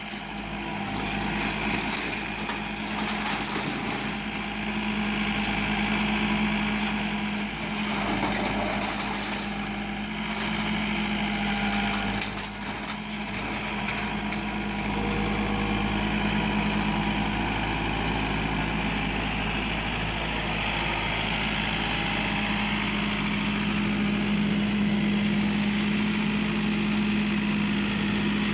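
John Deere 4720 compact tractor's diesel engine running steadily while its loader bucket grabs and carries sheets of scrap barn tin and boards, with a few short stretches of scraping and clatter from the metal and wood in the middle.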